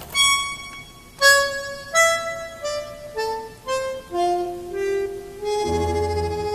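Tango music led by a bandoneón playing a slow melody of separate held notes, with low bass notes coming in near the end.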